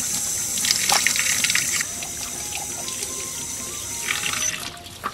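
Water running from an outdoor tap and splashing over raw dressed pigeons as they are rinsed by hand above a wire rack. The flow is heaviest in the first couple of seconds and stops abruptly near the end.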